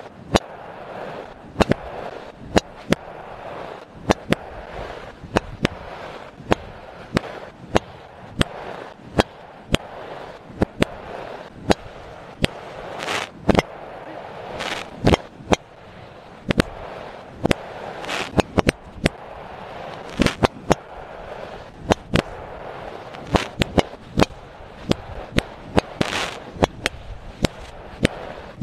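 Fireworks going off: a long irregular string of sharp cracks and bangs, often one or two a second, with a few louder reports, over a steady murmuring background.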